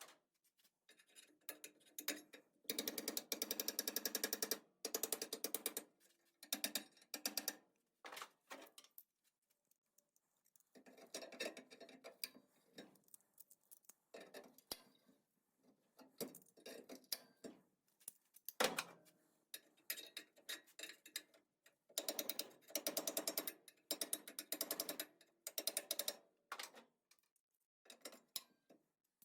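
Small power sander with a new sanding disc, run in repeated on-off bursts of a few seconds against a rusty, pitted steel brace, with a fast chattering rattle.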